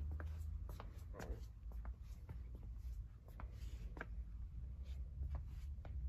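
Faint handling noise from a handheld phone carried through a small room: scattered small clicks and rustles over a low rumble.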